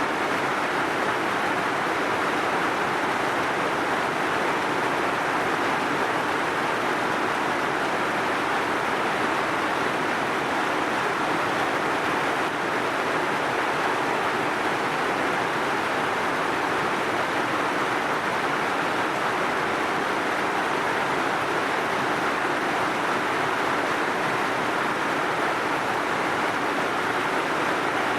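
Heavy rain falling steadily, a dense even hiss with no separate drops or thunder standing out.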